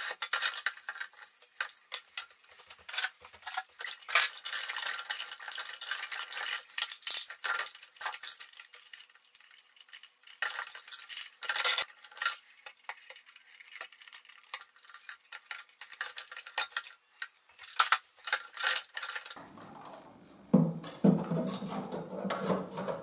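Plastic toilet-cistern parts being rinsed by hand in a plastic tub of water: irregular splashing and sloshing with light plastic clicks and knocks. From about 19 seconds in, a fuller sound of plastic parts scraping and knocking as they are fitted back into the cistern.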